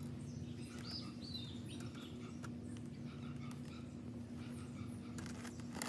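Faint bird chirps over a steady low hum, with a few light clicks near the end.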